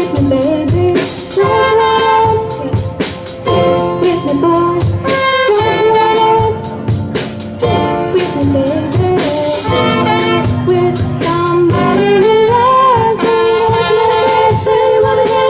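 Middle school garage band playing a song live: a girl singing lead over drums, bass, guitar and keys, with saxophone and trumpet.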